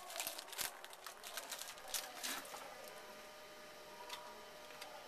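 Faint rustling and crinkling of a trading-card pack wrapper and cards being handled, in short bursts over the first couple of seconds, then only a few light ticks.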